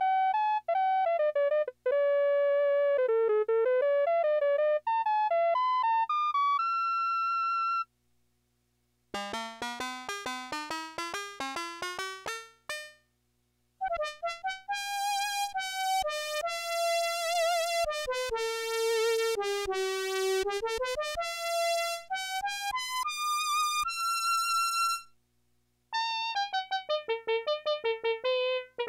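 Yamaha PS-6100 keyboard playing single-line melodies in several short phrases separated by brief pauses, the tone changing from phrase to phrase as different preset voices are tried. One phrase is a quick run of short notes, and the held notes in another have a vibrato.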